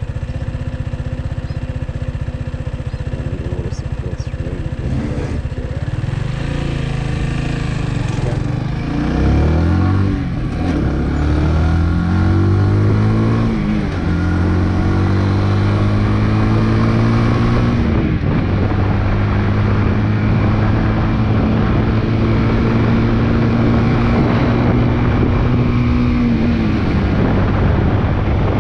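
Big Boy SuperLight 200cc motorcycle engine pulling away and accelerating through the gears, its pitch climbing and dropping back at each of several upshifts, then holding steady at cruising speed with wind rushing over the microphone. Near the end the engine note falls as the throttle is eased off.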